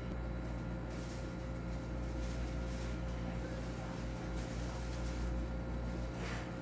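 Steady electrical hum of kitchen equipment, with a thin constant tone over it and a few faint soft rustles now and then.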